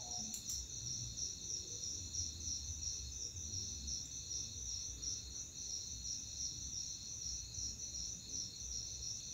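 A cricket chirping steadily in a high-pitched trill of rapid, even pulses, with a faint low rumble underneath and a small click or two about half a second in.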